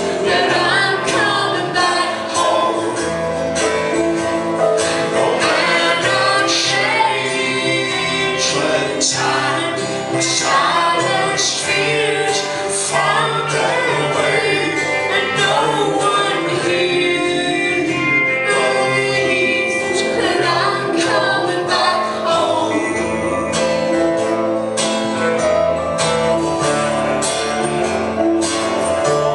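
Live band music: singing voices over the band, with steady percussion hits.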